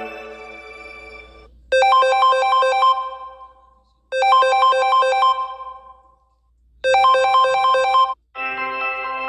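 Samsung Galaxy stock ringtone playing: a short phrase of rapid, bright, chiming notes repeats three times about two and a half seconds apart, each ringing out and fading. The third repeat cuts off abruptly. Near the end a different ringtone with held chords begins, and at the start the previous tone is still fading out.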